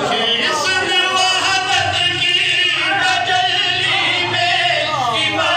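A man chanting a qasida, a devotional Urdu poem, into a microphone in a melodic voice with long, wavering held notes.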